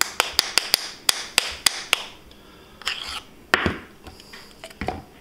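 A metal spoon tapping and clacking against the jar and measuring cup while scooping peanut butter: a quick run of sharp taps for about two seconds, then a few scattered knocks.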